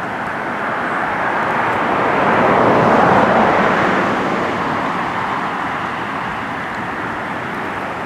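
A vehicle passing by: a steady rushing noise that swells to its loudest about three seconds in, then slowly fades.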